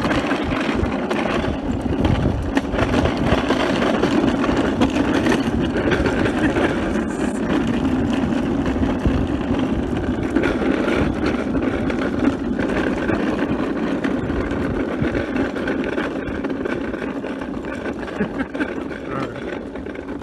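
Wheels of a towed homemade wheeled seat rolling over asphalt road, a steady rumble that eases off near the end as it slows.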